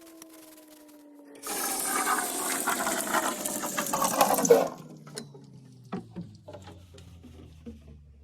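Water pouring into a plastic bottle for about three seconds, stopping abruptly, followed by a few light clicks and taps.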